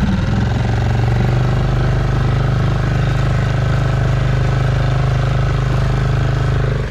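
Dinghy outboard motor opened up to speed, then running steadily at higher revs while towing, with water rushing along the hull.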